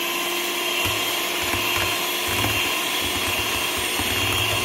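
Electric hand mixer running steadily with a constant motor whine, its beaters whisking two egg whites to a froth in a stainless steel bowl, the early stage of beating meringue.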